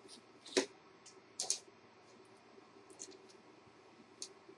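A handful of faint, sharp clicks and taps from handling a steel tape measure against aluminium antenna tubing. The loudest comes about half a second in, and a few lighter ones are spread through the rest.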